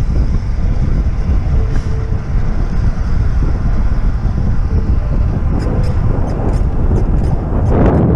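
Wind rumbling on the microphone while cycling along a road, with a run of light ticks over the last few seconds.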